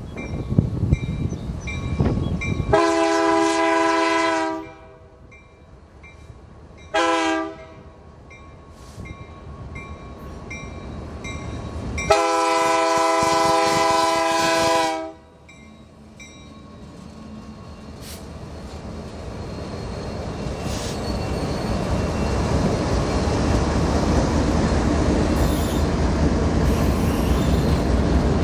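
Canadian National diesel locomotive's air horn sounding for a grade crossing, a chord of several tones: a long blast, a short blast, then a longer blast. After the horn comes the rumble of the locomotive and then the freight cars rolling over the crossing, growing steadily louder.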